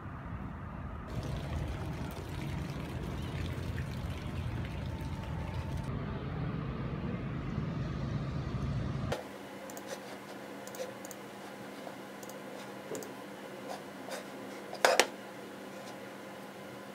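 Outdoor ambience with a steady low rumble, then a cut about nine seconds in to quiet room tone with a steady hum and scattered taps on a laptop keyboard. The loudest is a sharp double click about fifteen seconds in.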